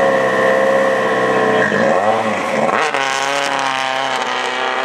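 Rally car engine running at high revs. About two seconds in the pitch dips briefly and climbs back, then the engine holds steady at high revs.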